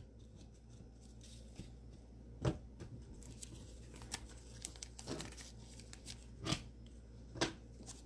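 Trading cards and card packs being handled: a few light taps and rustles scattered through a quiet stretch.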